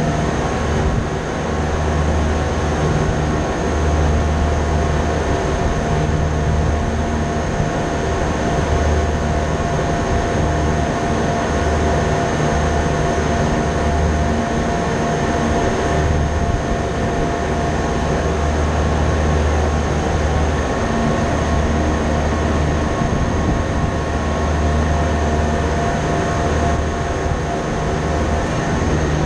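Steady machinery drone holding several steady tones over a hiss, with a low rumble that swells and drops every second or two.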